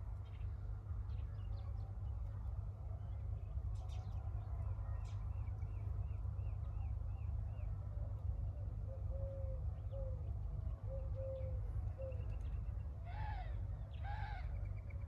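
Birds calling over a steady low rumble: a quick run of short repeated chirps about five seconds in, and two louder, harsher calls near the end.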